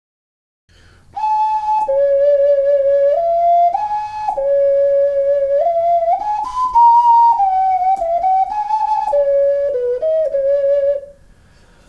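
A 3D-printed plastic ocarina playing a slow melody of clear, held single notes that step up and down. The tone is pure and flute-like, and it stops shortly before the end.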